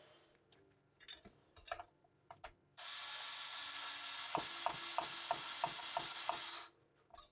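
A few light handling clicks, then a steady hiss lasting about four seconds. Through the second half of the hiss comes a ratcheting screwdriver driving a screw into a computer case, clicking about three times a second.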